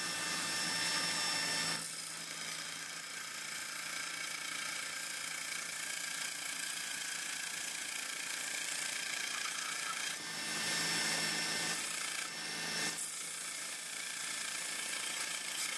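Belt sander running, with a small wooden block pressed against the moving abrasive belt: a steady sanding hiss over the machine's hum, a little louder for a few seconds about ten seconds in.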